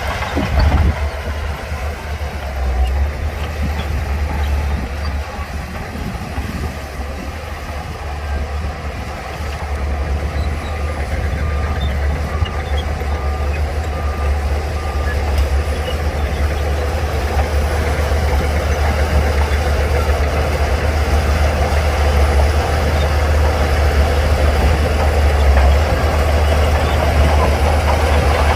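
Heavy diesel earthmoving machinery running under load, getting louder in the second half. A reversing alarm beeps steadily for several seconds near the middle.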